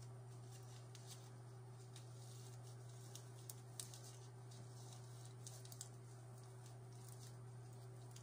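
Near silence: a steady low hum with a few faint clicks of computer keys around the middle.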